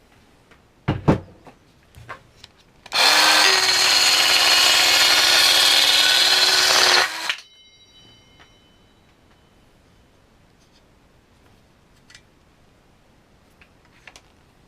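Parkside PHKSA 12 A1 12-volt cordless mini circular saw running at full speed for about four seconds, then stopping abruptly, with a few knocks and clicks about a second before it starts.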